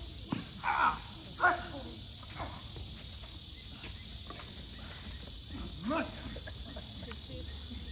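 Crickets chirring in a steady, high-pitched chorus, with a few short sliding sounds about a second in and again around six seconds.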